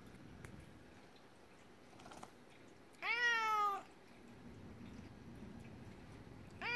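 Domestic cat meowing: one drawn-out meow that rises then slowly falls about three seconds in, and a second meow starting right at the end.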